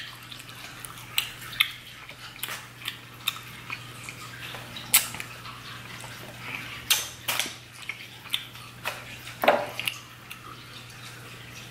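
Close-up wet eating sounds: lip smacks and sticky chewing of sauce-covered sausage, a run of short irregular clicks and smacks with a few louder ones.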